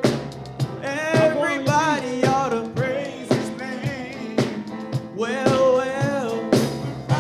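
Live gospel song: a male vocalist singing with vibrato into a microphone, backed by a drum kit with regular drum and cymbal hits.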